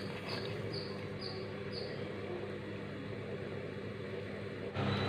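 Covered pot of chicken gravy simmering on a gas stove under a glass lid: a steady low hiss with a faint hum, which steps up abruptly louder near the end.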